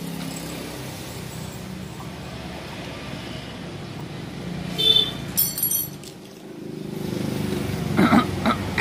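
A motor vehicle's engine running steadily close by, growing louder about seven seconds in. About five seconds in come a few sharp metal clinks of a spanner working at the Vespa scooter's front wheel hub.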